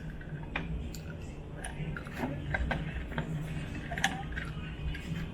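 Scattered light clicks and taps from small plastic parts and packaging being handled, over a low steady hum; the sharpest click comes about four seconds in.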